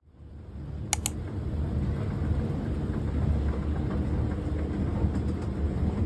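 Steady low rumble of a moving escalator, with two quick clicks about a second in.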